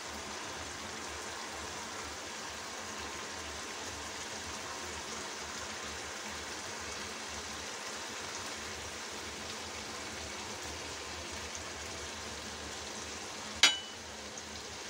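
Oily spiced masala gravy sizzling steadily in a nonstick pan. A single sharp clink sounds near the end.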